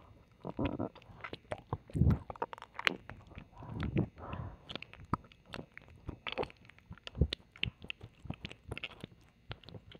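Close-miked ASMR mouth sounds of ear licking: irregular wet clicks, smacks and slurps, a few louder and lower near the middle, heard from the left side.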